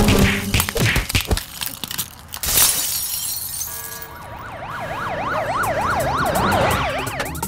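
Cartoon police siren wailing up and down fast, about four sweeps a second, growing louder over its last three seconds. Before it come a flurry of scuffling knocks and a noisy crash about two and a half seconds in.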